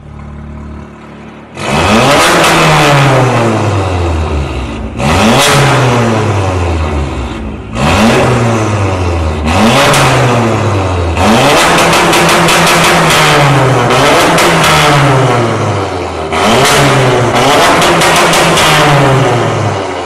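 Audi S3 8V's turbocharged 2.0-litre four-cylinder through an ARMYTRIX aftermarket exhaust, idling, then from about a second and a half in revved hard again and again: each blip jumps up in pitch and falls away, with crackles and pops as the revs drop.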